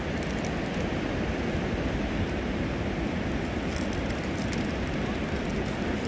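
Steady low rumble of distant sea breakers washing onto a sandy beach, with faint scattered clicks high up.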